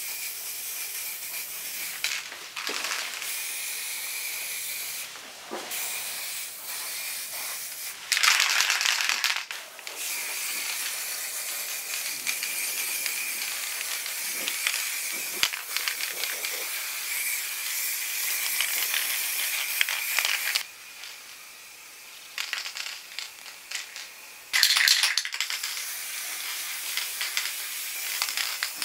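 Aerosol spray-paint can hissing in long passes, with a faint steady whistle in the hiss. It stops briefly between passes, and there is a quieter stretch about three quarters of the way through.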